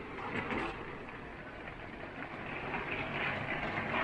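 Heavy wind and rain of a severe thunderstorm, heard from inside a truck camper as a steady roar that swells and eases.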